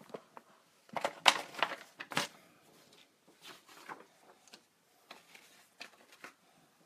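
Handling noise from a phone held in the hand: a cluster of knocks and rubs on the phone about a second in, then scattered softer ticks and rustles.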